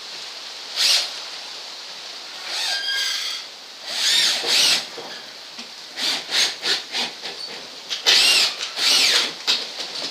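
Power drill driving screws into hard purpleheart in a series of short bursts, the pitch bending up and down as each screw bites and tightens.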